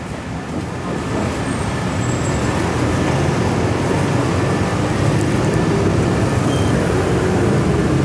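Road traffic: a steady rumble of motor vehicles that swells over the first few seconds and then holds, with an engine note rising near the end.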